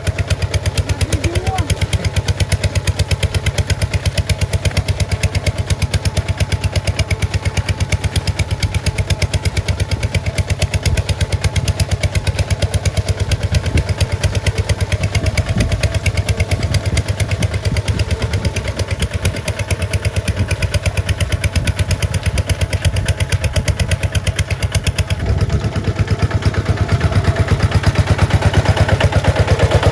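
Kubota RT140 single-cylinder diesel engine on a tractor, running steadily with a rapid, even firing beat. It gets a little louder in the last few seconds.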